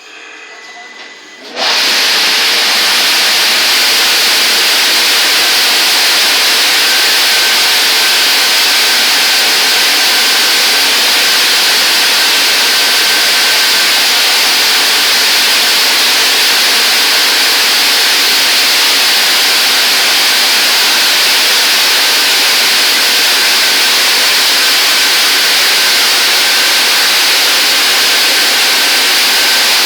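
Touchless car wash machine spraying high-pressure water: a loud, steady hiss that starts suddenly about a second and a half in, with a faint thin whine under it.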